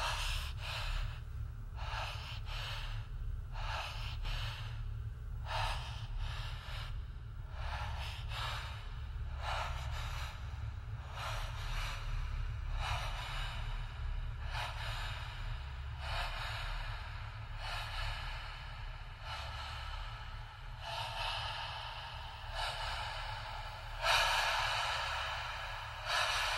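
A man's heavy, fast breathing inside a spacesuit helmet, about one breath a second, louder near the end, over a steady low hum. It is the strained breathing of an astronaut whose suit's oxygen is running out.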